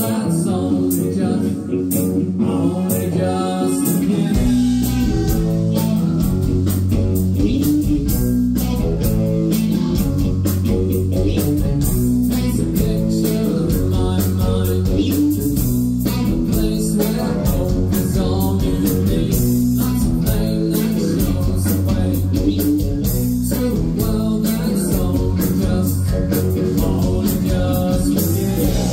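Live rock band playing: electric guitar, bass guitar and drums, with a man singing lead. The bass comes in about four seconds in, filling out the low end.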